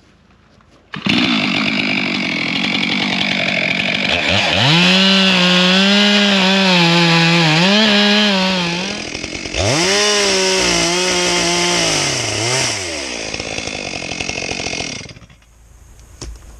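Two-stroke chainsaw running at full throttle as it cuts more wood out of the back cut of a leaning dead tree to reach the felling wedge. It comes on suddenly about a second in and revs up to a steady high note. The note dips briefly and revs up again, then falls away, and the saw stops near the end.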